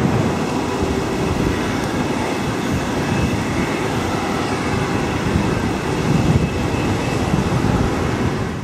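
Boeing 767-400ER jet airliner passing low on landing approach: its two General Electric CF6-80C2 turbofan engines make steady jet noise with a deep rumble and a thin high whine.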